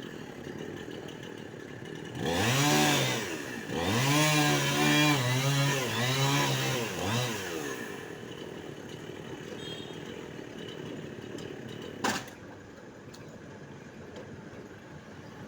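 Chainsaw revved up and back down in two surges, then running on low in the background; a single sharp knock comes near the end.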